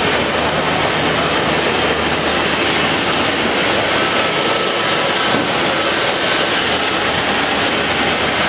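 PTP 260 CNC point-to-point drilling machine running, a steady mechanical noise with a faint thin whine for a moment near the middle.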